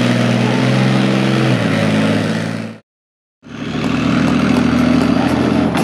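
Leopard 2 tank's V12 diesel engine running under way, its pitch stepping down a little about one and a half seconds in. The sound cuts out for about half a second in the middle, then the engine is heard running again.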